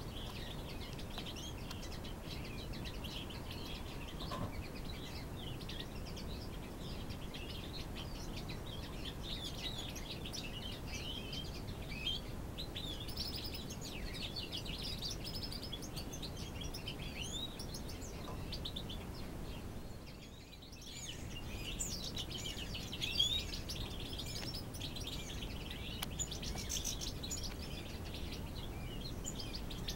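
A mixed group of small finches, European goldfinches among them, chirping and twittering continuously in many short, overlapping calls over a steady low background noise.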